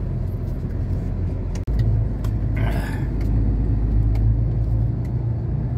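Heavy truck's diesel engine running, a steady low rumble heard from inside the cab. About one and a half seconds in it cuts out for an instant and comes back louder, with a short hiss about a second later.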